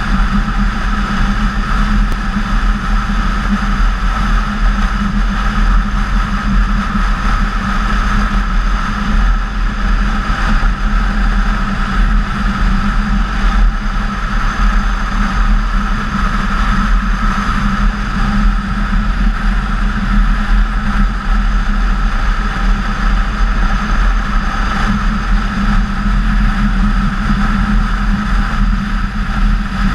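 BMW K1600GTL motorcycle's inline-six engine running at a steady cruise, mixed with wind and road noise, heard through a camera mounted on the bike.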